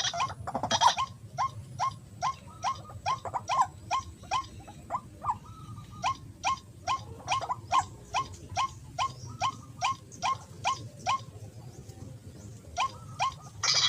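White-breasted waterhen calling: a long run of short, sharp notes, about three a second, that stops about eleven seconds in, followed by two more notes near the end.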